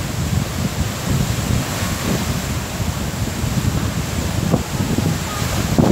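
Wind buffeting the microphone in an irregular low rumble, over the steady rush of rough high-tide surf breaking on the beach.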